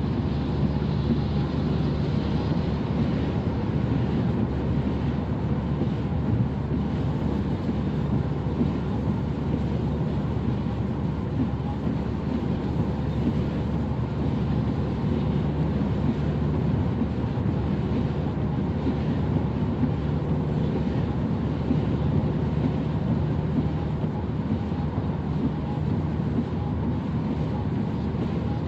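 Steady road and engine noise of a car driving on a motorway, with a constant low hum and no change in speed.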